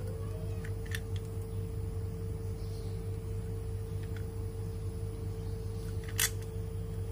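A few light clicks from a hand riveter's metal body being handled, the sharpest and loudest about six seconds in, over a steady low hum.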